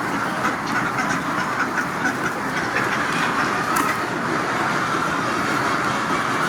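A large flock of chickens clucking and chattering together in a steady, dense din.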